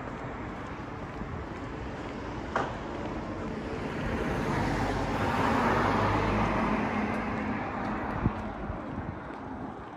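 Road traffic on a city street, with a motor vehicle passing close: its engine noise swells to a peak about six seconds in and then fades. Two brief sharp knocks stand out, one early and one near the end.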